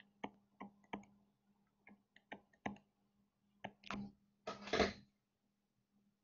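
Faint clicks of a stylus tapping on a tablet screen while handwriting, a string of short sharp taps followed by two longer scratchy strokes about four and five seconds in, over a faint steady low hum.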